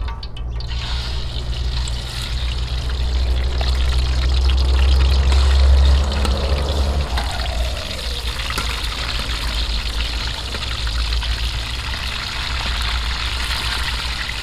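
Water pouring and trickling into a basin as vegetables are washed by hand. The pouring is heaviest in the first half and eases off about six seconds in.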